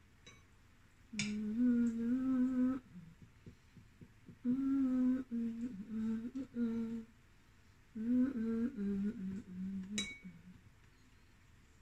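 A woman humming a tune with her mouth closed, in three short phrases of held, sliding notes. There is a sharp click about a second in and another near the end.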